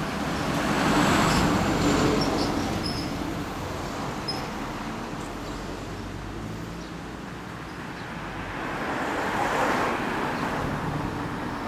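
Street traffic noise: vehicles running and passing, swelling louder about a second in and again near the end.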